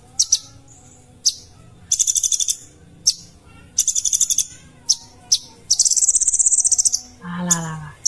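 Caged male sunbird (kolibri ninja) singing: bursts of very high, rapid trilling about half a second long, broken by single sharp chirps, with the longest trill running about a second near the end.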